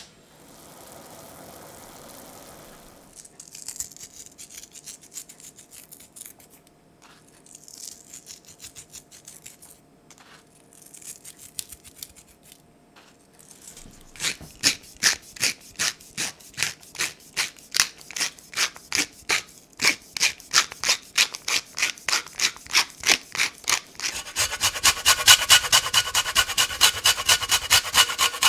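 Hand-seasoning of raw chicken breasts on a steel tray: regular rasping strokes, about two a second, as seasoning is ground and grated over the meat. The strokes turn faster and louder near the end.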